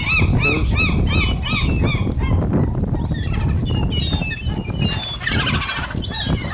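Gulls calling while they dive onto the water for food: a rapid run of repeated calls, about three a second, for the first two and a half seconds, then overlapping higher squealing calls from several birds.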